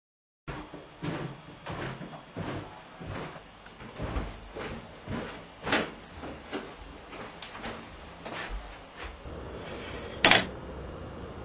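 A run of short knocks, about one every two-thirds of a second, then a sharp clack as a door's letterbox flap snaps shut, the loudest sound, about ten seconds in.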